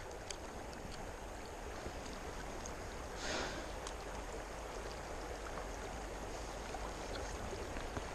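Steady rush of flowing stream water, with a brief swell about three seconds in and a few faint ticks.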